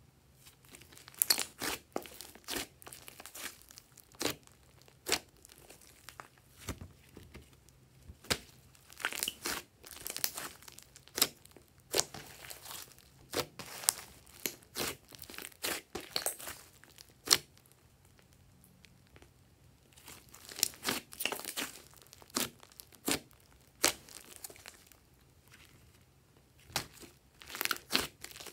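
Thick slime being squeezed, folded and kneaded by hand, giving off irregular sharp clicks, pops and crackles, with a couple of short quiet pauses.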